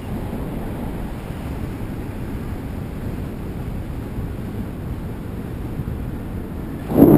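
Steady wind rushing over the microphone of a paraglider pilot's harness-mounted camera in flight, a low rumble with no tone in it, with a brief louder burst of wind noise near the end.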